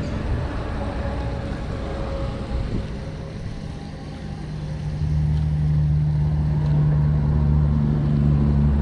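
A motor engine droning with a steady low hum, growing louder about five seconds in.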